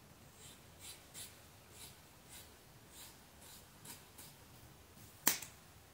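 Scissors snipping through a held section of long hair: about nine soft, crisp cuts roughly every half second, then one sharper, louder snip about five seconds in.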